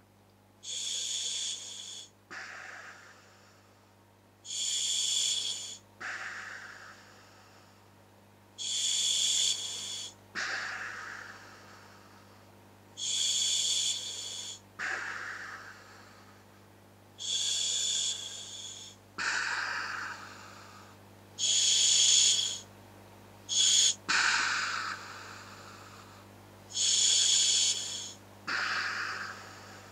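Breathing through a scuba regulator fitted to a hooded gas mask. Each breath is a loud rush of air with a whistling edge as the regulator delivers, then a lower, fading breath out, about once every four seconds, with two short quick pulls near the end.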